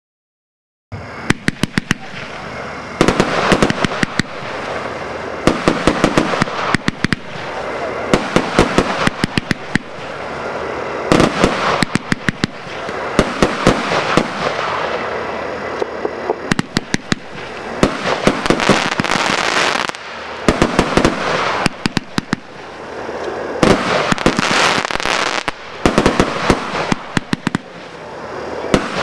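Fireworks cake 'Firefighters' (100 shots) firing, starting about a second in: volleys of sharp shots over a continuous crackle from the bursting effects.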